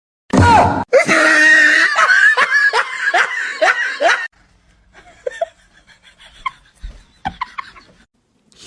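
Loud laughter in quick repeated bursts for about three seconds, dying away to faint short sounds.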